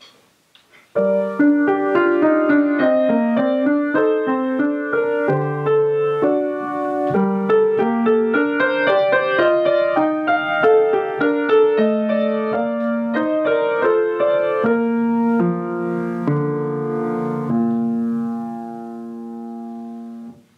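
Schimmel upright piano being played: a slow piece of melody over full chords, starting about a second in. It ends on a long held chord that rings and slowly fades away.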